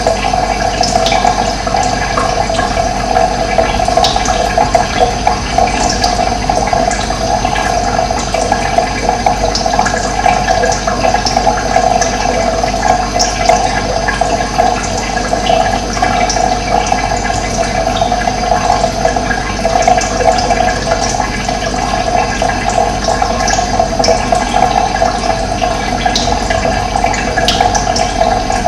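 Running water rushing steadily, with brief high chirps from birds scattered through it.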